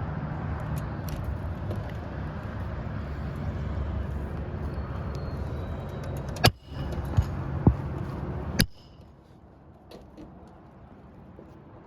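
Four sharp hammer strikes, set irregularly about half a second to a second apart: nails being driven into an asphalt shingle next to the old, unusable nail holes. They sit over a steady low rumble that drops away with the last strike.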